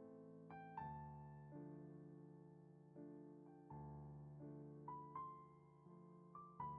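Soft background piano music: slow, gentle chords with single high notes picked out over them.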